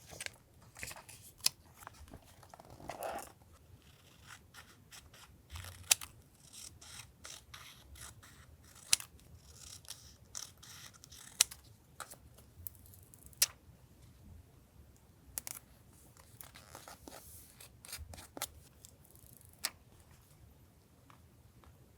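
Scissors snipping through paper, a series of sharp separate snips at irregular intervals.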